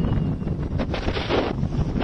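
Strong wind buffeting the microphone over rough sea surf breaking against a seawall and its concrete tetrapods, with a rushing hiss of water that swells about a second in.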